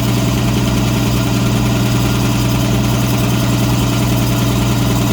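Home-built air compressor with two-stage piston pumps running steadily under load, pumping up its tanks and air hose. A constant, even low hum with no change in speed.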